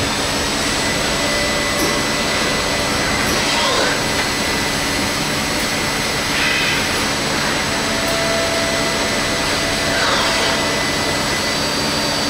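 Müga XP4 CNC lathe running: a steady machine whir with a faint high whine, and brief rising-and-falling drive whines as the tool turret slide traverses.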